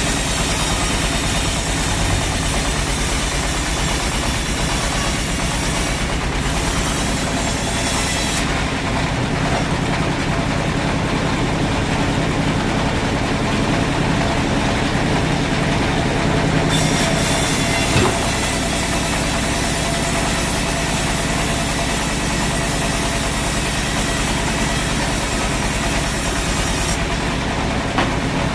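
Sawmill machinery running steadily with a low hum. A high hiss over it drops away about eight seconds in and returns around seventeen seconds, with a single knock just after.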